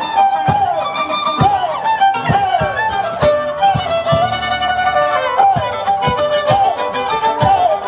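Violin playing a fast tipaki tipaki melody full of sliding notes, over regular low beats.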